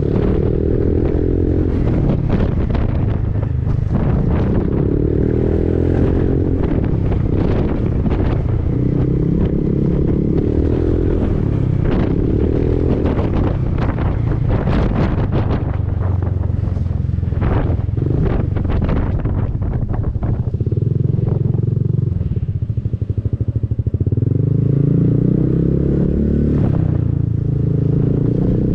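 Honda Forza 300 scooter's single-cylinder engine running through an Arrow aftermarket exhaust while riding, its pitch rising and falling with the throttle. It eases off briefly about two thirds of the way through, then climbs again. Wind buffets the microphone throughout.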